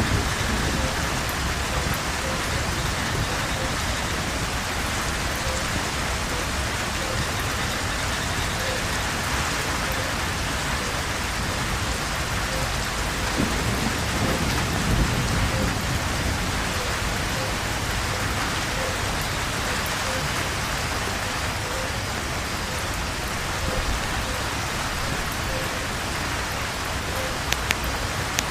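Steady heavy rain pouring down, with a low rumble of thunder swelling about halfway through.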